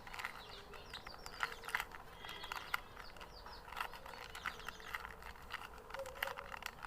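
Plastic 2×2 Rubik's cube being turned, a quick run of irregular clicks and rattles from its layers. Birds chirp faintly in the background.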